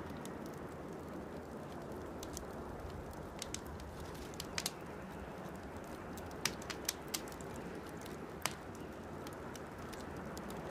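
Small twig campfire crackling: sharp pops every second or so over a steady low hiss.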